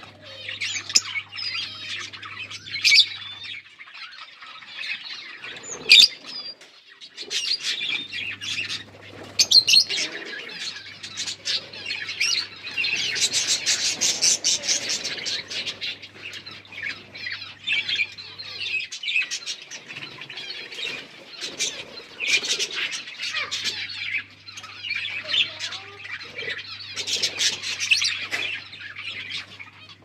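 Lovebirds chattering nonstop in rapid, high-pitched twitters and chirps while a pair mates, busiest about halfway through and again near the end.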